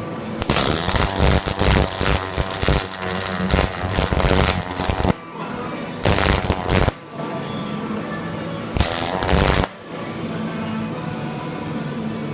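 Electric welding arc crackling on steel in three bursts: one long run of about four and a half seconds, then two short tacks of about a second each, each cutting off sharply.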